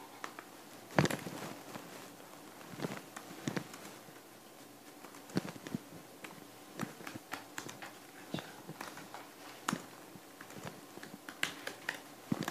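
Scattered light taps and clicks of hands working at a desk, irregular and unhurried, with one sharper knock about a second in.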